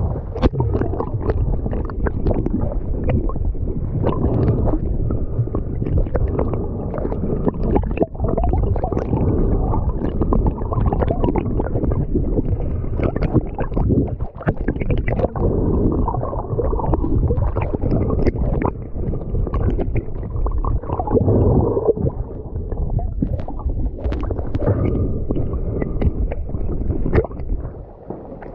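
Sea water sloshing and gurgling around a camera held half-submerged at the surface. The sound is muffled and heavy in the lows, with frequent small splashes and pops.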